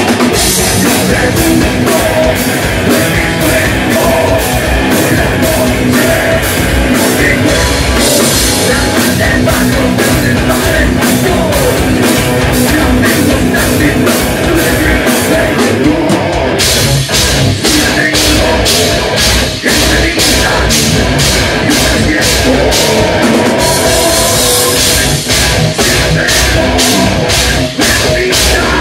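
Live rock band playing loud: electric guitar and a drum kit driving a steady beat, with a vocalist singing into a handheld microphone.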